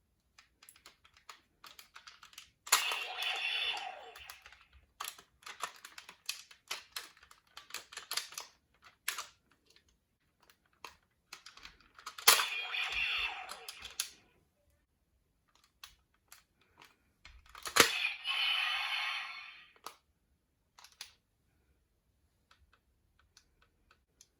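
A folded-paper toy being handled and taken apart: scattered taps and clicks of paper pieces, with three longer stretches of paper rustling and sliding. The last two of these start with a sharp snap.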